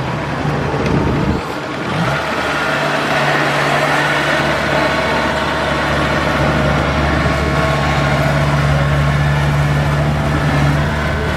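Engine of a rice-harvesting machine running steadily, its pitch dipping and coming back up about two seconds in, then holding even.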